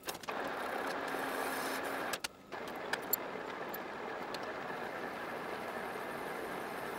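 Metal lathe taking a skim cut across the face of an aluminium block to true it up: steady cutting noise from the tool and turning chuck as chips come off. It breaks off briefly about two seconds in, then carries on.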